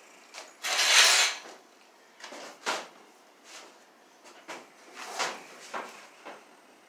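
Yellow electrical cable being pulled by hand and fed into a plastic electrical box. A long scraping rush of the cable sliding comes about a second in, then several shorter scrapes and knocks as it is worked into the box.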